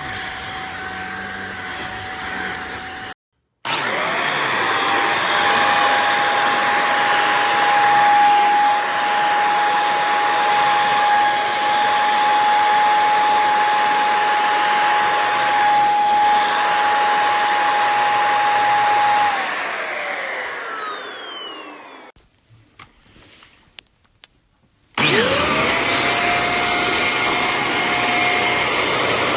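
JPHYLL corded bed vacuum running with a steady high whine over a rushing airflow. It winds down with falling pitch after about 19 seconds, sits nearly silent with a few clicks, then is switched back on and spins up again near the end.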